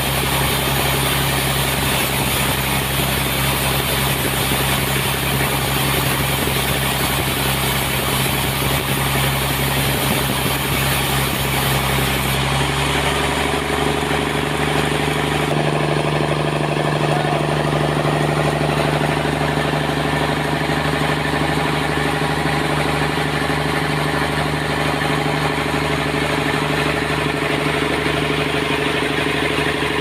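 Engine of a band sawmill running steadily while the blade cuts through a trembesi (rain tree) log, with a hiss of sawing over the engine hum. About twelve seconds in the hiss thins and the engine's tone rises slightly, as the load comes off at the end of the cut.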